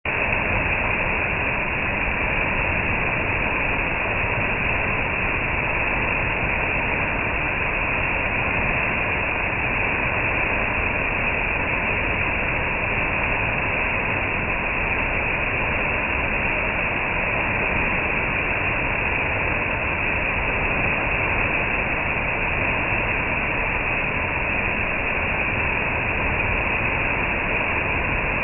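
Waterfall's falling water, a steady, even rush that does not change.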